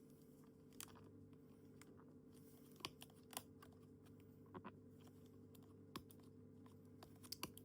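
Faint scattered clicks and crackles of a cardboard box being handled and pried open, over a low steady hum.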